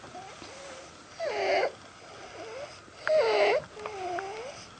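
Stridor: harsh, pitched, noisy breathing from a narrowed upper airway. There are two breaths, about two seconds apart, each a loud rasping sound followed by a softer one.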